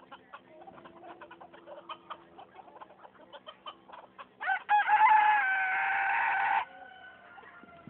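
Chickens clucking softly with scattered pecks and short calls, then a rooster crows about four and a half seconds in: a couple of short notes and a loud drawn-out call of about two seconds that ends abruptly.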